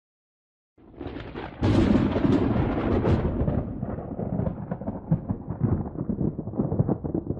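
Thunder sound effect: a rumble starts about a second in, breaks into a loud crash shortly after, then rolls on crackling and rumbling.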